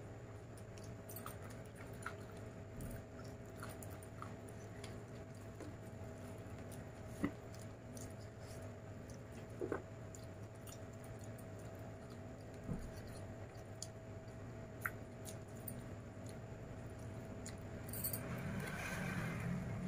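A person chewing chicken and rice eaten by hand, with scattered small mouth clicks over a steady low hum. Near the end, fingers mix rice and curry on a steel plate.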